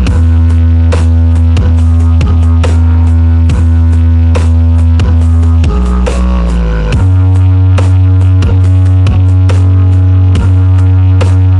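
Loud music played through a large sound system's subwoofers: a heavy, sustained bass line under a steady drum beat, with the bass dropping lower for about a second midway.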